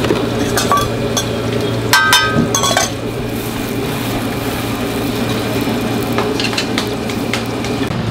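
Metal utensils and steel pots clinking at a street food stall, with a quick run of ringing clinks about two seconds in and a few lighter clicks later, over a steady low hum.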